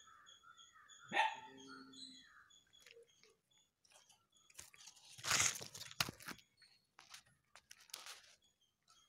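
Cat chewing a lizard, with wet clicks and crunches, one loud crunching burst near the middle. About a second in, a single loud bark-like animal call.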